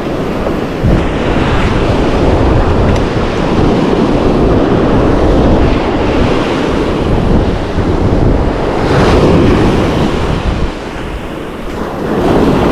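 Ocean surf breaking and washing in, with wind buffeting the microphone.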